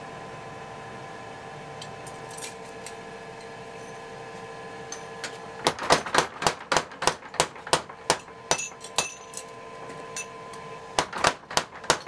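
Quick light metal-on-metal taps, about four or five a second, starting about halfway through, pausing briefly and picking up again near the end, over a steady hum.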